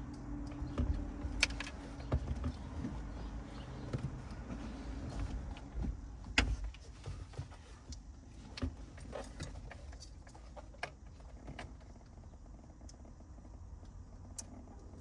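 Scattered clicks and knocks of hands working at a car's steering wheel hub, fitting the horn connector, over a low steady hum. The loudest knock comes about six seconds in.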